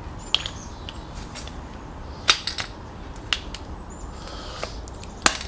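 Plastic clicks and snaps of a Krylon Snap and Spray trigger handle being worked onto the rim of an aerosol spray paint can: a scatter of sharp single clicks, with a loud snap near the end as the handle seats as a tight fit.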